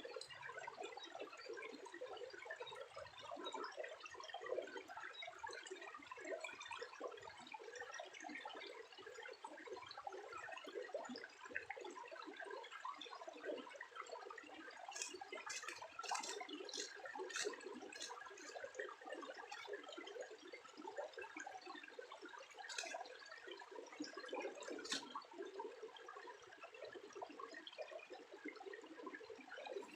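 Water trickling and splashing in a steady patter, with a quick run of sharp clicks about halfway through and two more clicks a little later.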